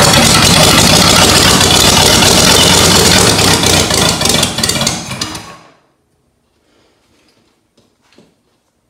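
Rebuilt Ford flathead V8-60 engine running on a stand, then dying away over about two seconds around five seconds in: a stall on an engine that struggles to keep running. Afterwards only a few faint clicks.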